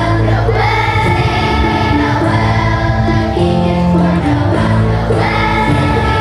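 Children's choir singing a Christmas carol in unison over a steady instrumental accompaniment.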